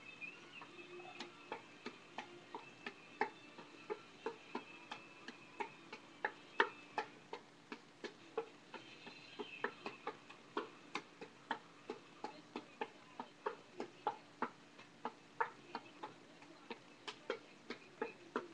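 Juggling clubs being caught and thrown in a steady pattern, a run of sharp slaps of the clubs into the hands at about three a second.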